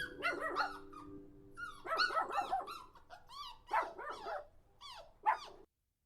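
A dog barking in quick runs of short, high-pitched calls, stopping suddenly near the end.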